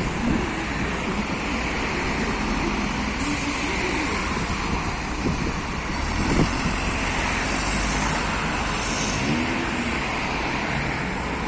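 LiAZ-5292.21 city bus running, a steady rumble of its diesel engine mixed with road noise.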